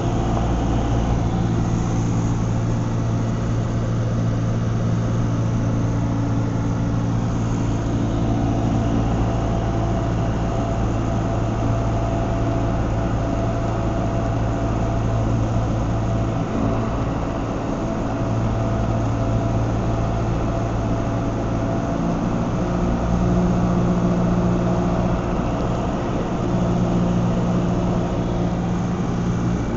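Cabin noise of a light propeller aircraft in flight: a steady engine and propeller drone over rushing air. The engine note shifts slightly about three-quarters of the way through.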